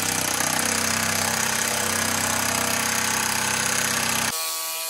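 Cordless impact gun hammering steadily on a 13 mm bolt through a socket extension. A little over four seconds in, the hammering stops and the tool spins on with a quieter, steady whine as the bolt breaks loose.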